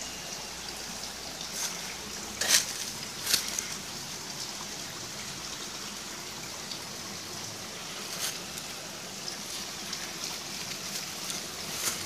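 Steady rushing of water from a small waterfall on a stream. A few brief crackles of dry grass and stalks come through, loudest about two and a half and three seconds in.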